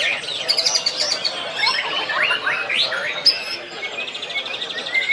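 White-rumped shama (murai batu) singing: a fast, varied run of whistled rising and falling glides and rapid trills.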